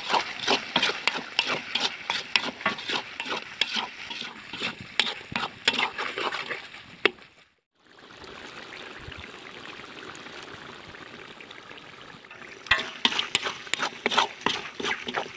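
Spatula scraping and knocking against a large metal wok as chicken intestines are stirred with spice powder, over a steady sizzle of frying. The sound cuts out briefly about halfway, leaving a few seconds of sizzling alone before the stirring picks up again near the end.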